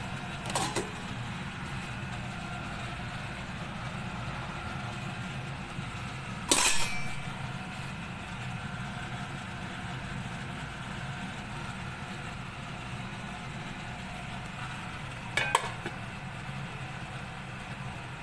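Pot lid clanking against a metal cooking pot three times, loudest about six and a half seconds in, over a steady low hum.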